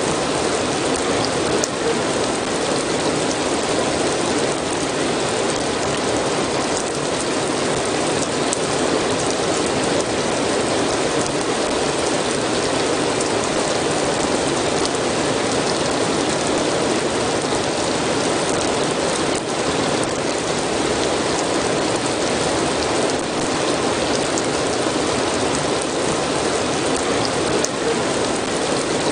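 Steady rain falling, an even hiss of many drops with faint scattered patters.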